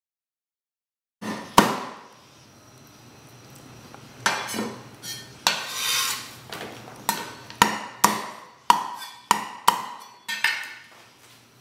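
Chinese cleaver chopping a cooked chicken wing on a thick round wooden chopping block: about a second of silence, then a run of sharp knocks, about a dozen, irregularly spaced and coming quicker in the second half.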